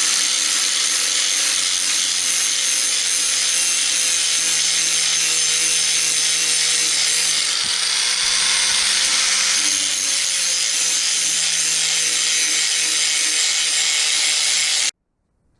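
A 4-inch angle grinder running steadily as it grinds a new bevel into the top edge of a steel finish-mower blade to sharpen it, with a steady motor hum under a harsh grinding hiss. Its pitch sags slightly a couple of times under load, and it cuts off suddenly near the end.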